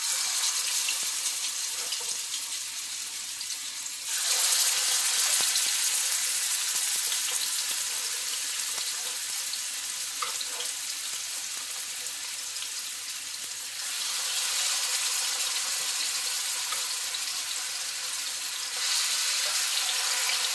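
Chicken thighs sizzling in hot oil in a stainless steel frying pan, the sizzle starting abruptly as the first piece goes in. It steps louder about four seconds in, and again about fourteen and nineteen seconds in, as more pieces are laid in with tongs, easing off a little in between.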